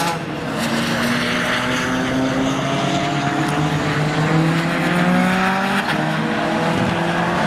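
Race-prepared 2.3-litre Duratec four-cylinder engine of a Ford Focus Silhouette race car under hard acceleration on track. Its revs climb steadily for most of the stretch, then drop near the end and start climbing again.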